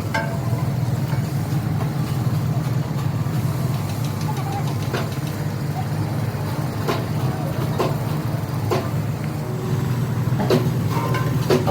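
A steady low engine-like hum, with half a dozen sharp knocks in the second half.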